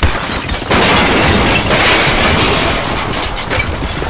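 Rockslide: rocks and boulders crashing and tumbling down a steep mountainside onto the dirt road just ahead of the vehicle. The loud rush of falling rock starts suddenly about a second in and keeps going, with scattered cracks of rock striking rock.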